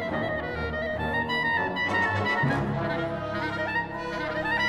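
Solo clarinet playing a high melodic line over a full orchestra, with strings and brass accompanying.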